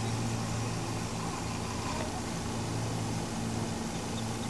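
Steady low mechanical hum, with a couple of faint bird chirps.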